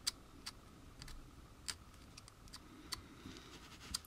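Hobby knife blade nicking and scraping at a small plastic model part, trimming it down: faint, sharp clicks at about two a second, irregularly spaced.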